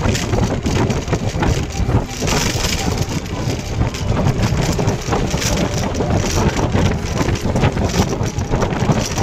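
Steady running noise of a moving vehicle, engine and road together, with wind rumbling on the microphone.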